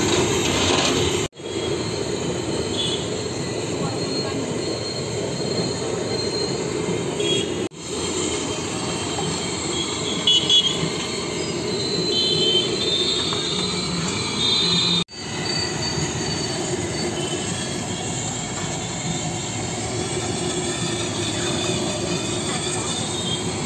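Fritters deep-frying in a large iron kadai of hot oil: a steady sizzle of bubbling oil, cutting out briefly three times.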